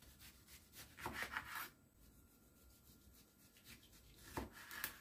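Kitchen knife sawing through a tomato on a wooden cutting board, in two short bouts of strokes: one about a second in and another near the end.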